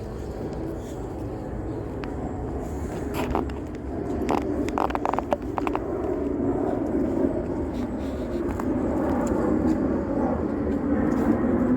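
Steady engine rumble growing gradually louder, with a few short clicks about three to five seconds in.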